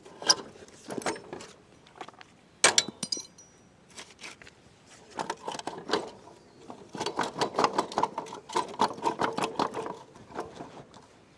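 Metal tools and motorbike parts clinking and knocking during repair work, as a wheel assembly is taken apart. Past the middle comes a run of quick ringing metal taps, about four or five a second, for some three seconds.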